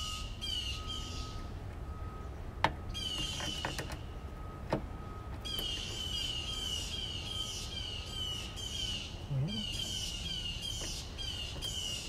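A bird calling in runs of short chirps, about two a second, each chirp sweeping downward, with brief pauses between runs. Two sharp clicks stand out in the first half.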